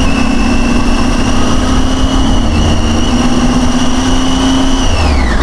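Two Triumph Tiger 800 motorcycles with three-cylinder engines running together at a steady engine speed. The note creeps up slightly, then falls in pitch near the end as the throttle is eased, with a low rush of wind under it.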